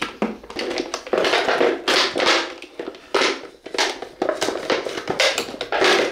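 Utility knife cutting into the thick plastic neck of a small pickle jar, in a series of irregular rasping, crunching strokes; the tough plastic resists the blade.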